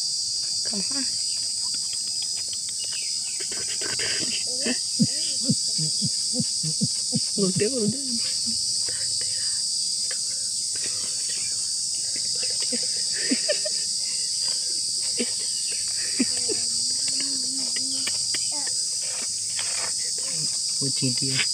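Steady high-pitched insect chorus. Over it come scattered light scrapes and taps, like a stick working through loose dry soil.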